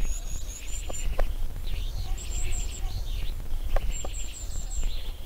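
Birdsong: several birds chirping, with runs of short high chirps and quick trills that come and go, over a steady low rumble of background noise.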